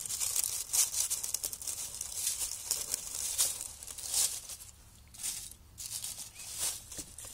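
Dry fallen leaves rustling and crackling as a gloved hand pushes through them, in irregular bursts of crinkling.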